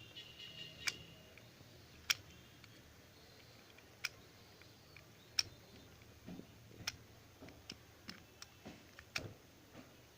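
Irregular sharp clicks and taps of small hand tools and metal parts being handled during bench work, about a dozen spread unevenly.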